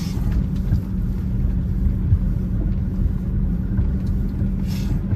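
Heard from inside the cab: a DAF truck's diesel engine running while the truck drives, a steady low rumble with a constant low hum.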